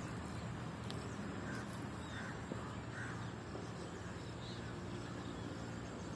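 Outdoor garden ambience: a steady rumble of road traffic with a few faint, short bird calls.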